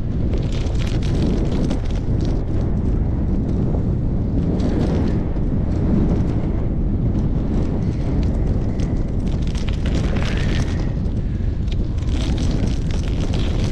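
Wind buffeting a moving microphone: a loud, steady low rumble, with a higher hiss and crackle that swells at times, most strongly about ten seconds in and again near the end.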